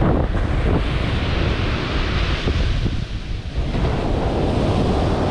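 Ocean surf breaking and washing up the beach, with wind buffeting the microphone in a low rumble. The surf hiss eases briefly about three seconds in.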